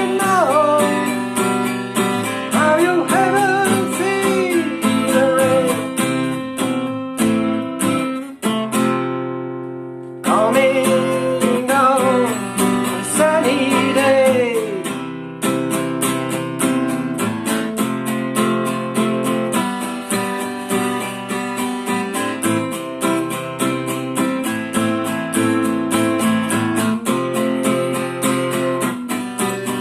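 Strummed acoustic guitar keeping a steady chord rhythm, with a melody line that bends in pitch over it. About eight and a half seconds in, the strumming stops and a chord rings out and fades. The playing comes back in about ten seconds in.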